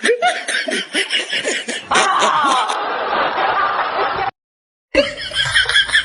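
Snickering laughter in quick pulses, then a stretch of muffled, noisy voice sound, broken by about half a second of dead silence at an edit before more voice and laughter.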